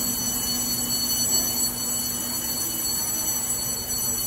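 A Beijing Subway Line 1 train standing at the platform with its doors open: a steady whine of several high-pitched tones over a low hum and station noise.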